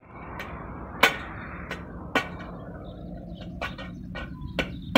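Irregular sharp metal-on-metal strikes, a hammer working on a steel reaper shaft, some with a brief ring, about eight in all and quickening near the end, over a steady low background hum.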